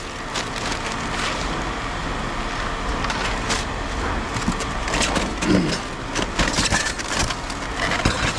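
Cardboard box and packing being handled and rummaged through: steady crackling and rustling with scattered small knocks and clicks.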